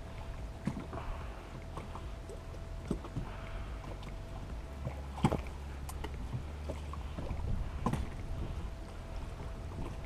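Wind buffeting the microphone as a low rumble aboard a small fishing boat on choppy water, with scattered knocks against the boat and a faint steady tone. The sharpest knock comes about five seconds in.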